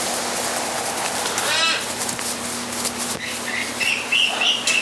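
Caged parrots calling over a steady background hiss: one short call about a second and a half in, then a run of high squawks in the last second and a half.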